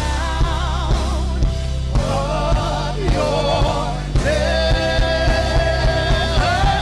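Live gospel worship music: a voice sings wavering, ornamented lines over a steady bass and a beat of about two strokes a second, then holds one long note from about the middle.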